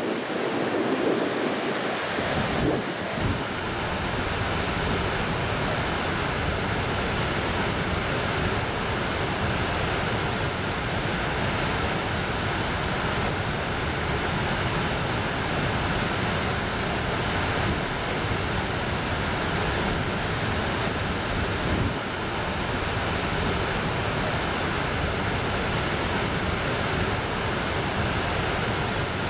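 Steady roar of floodwater released through the Pensacola Dam's open spillway gates: churning whitewater rushing down the Neosho River channel. The roar grows deeper and fuller about three seconds in.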